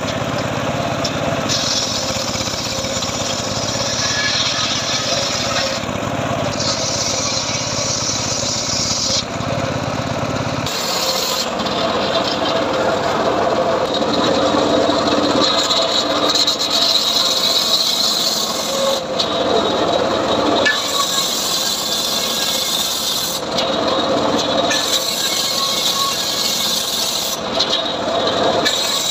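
Homemade circular saw cutting johar (jowar) wood, the blade rasping steadily through the timber. The low rumble under it drops away about ten seconds in.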